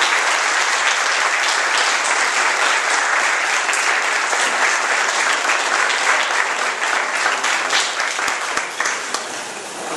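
Audience applauding, a dense steady clapping that gradually thins out and dies down near the end.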